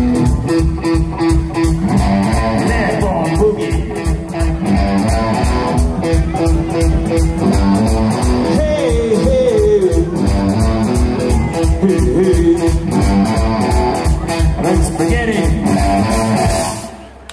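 Loud rock-style music with electric guitar over a steady, driving beat. It stops abruptly near the end.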